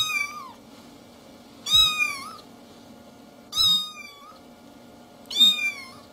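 Domestic cat meowing four times, about two seconds apart, each meow falling in pitch at its end.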